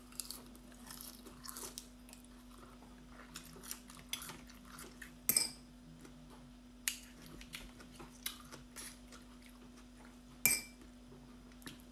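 Oyster shells and a metal fork clinking and scraping against a plate, with chewing between the clicks. Two louder clinks ring on briefly, about five seconds in and near the end, over a steady low hum.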